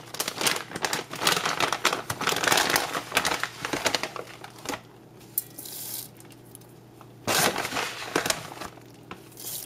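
Crinkling and rustling of grain packaging as a mixed-grain blend is scooped out by hand and dropped into a rice cooker pot of seasoned liquid. It comes in two spells: a long crackly one at first, then a shorter one after a quieter gap.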